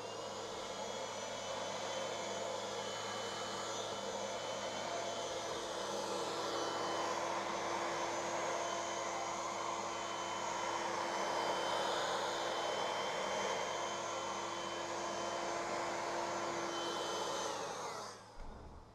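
Handheld corded fan-motor appliance running steadily, a rushing of air with a high motor whine. About 18 seconds in it is switched off and the whine falls away as the motor spins down.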